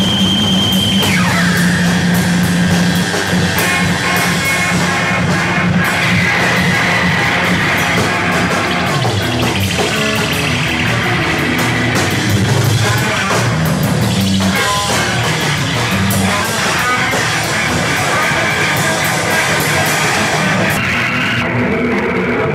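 Live noise music played by a band at high volume: a dense, distorted wall of sound with held droning tones, a low drone underneath and higher notes above, shifting in pitch every few seconds.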